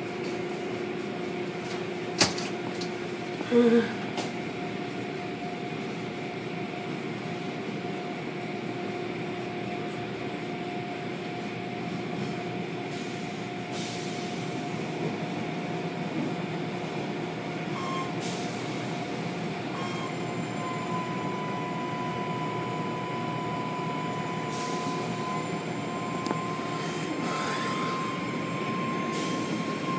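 Automatic tunnel car wash running: steady machinery hum with water spray and cloth brushes working over the cars. A sharp click comes about two seconds in and a short loud tone just before four seconds; a steady whine sets in about two-thirds of the way through.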